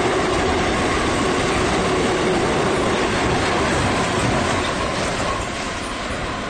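Container wagons of a long freight train rolling past close by: steady wheel-on-rail noise from the passing wagons, a little quieter near the end.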